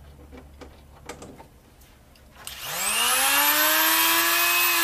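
A Harbor Freight 3-inch electric cut-off tool, converted to a die grinder with a 3/8-inch drill chuck, is switched on about two and a half seconds in. Its motor whine rises quickly to full speed and then runs steadily. Before it starts, there are a few light handling clicks.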